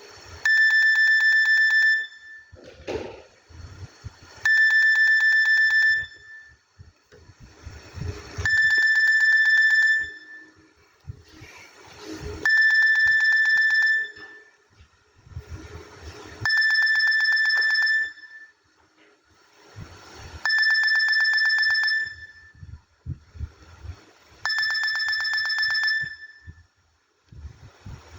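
Nokia N95 phone ringtone playing from the phone's speaker: a classic telephone-style ring, a fast trill on one high pitch lasting about a second and a half. It repeats every four seconds, seven times. Faint low knocks and rustle can be heard between the rings.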